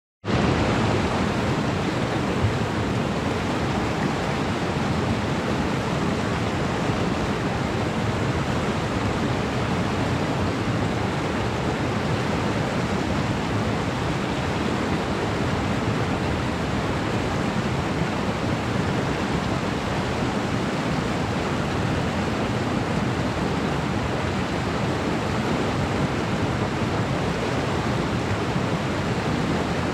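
Waterfall: water falling and splashing into a pool, an even, unbroken rush.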